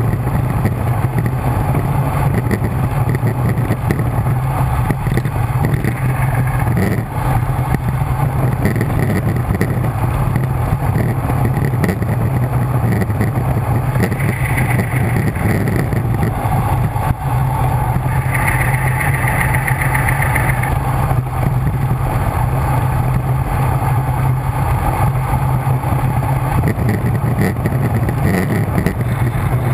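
Loud, steady wind rush on the microphone of a bike-mounted camera on a road bike descending at speed, with a brief higher buzz about two-thirds of the way through.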